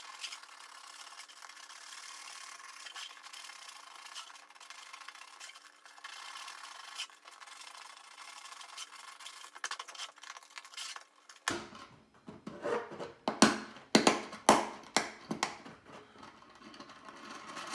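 Sandpaper rubbing on the 3D-printed plastic case as the bearing pocket is hand-sanded: a steady scratchy rubbing. About two-thirds of the way through it gives way to a series of sharp knocks and clicks as the bearing is pressed into its pocket.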